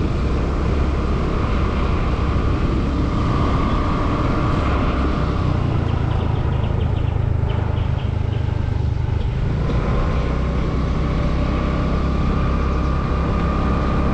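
Motorcycle riding steadily along a road: a constant low engine hum under wind and road noise.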